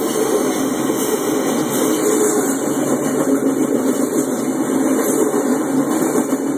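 Double-stack container freight cars rolling past close by: a loud, steady noise of steel wheels running on the rails.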